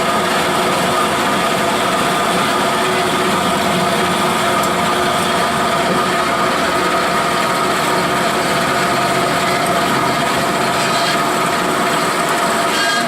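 W.F. Wells F-14 horizontal bandsaw running with its 1-inch blade cutting through thin steel tubing in a feed cut: a steady, even sound with a few held tones.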